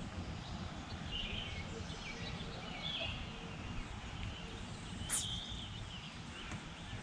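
Outdoor ambience: an uneven low rumble of wind on the microphone, with a few short bird chirps, the loudest just after five seconds.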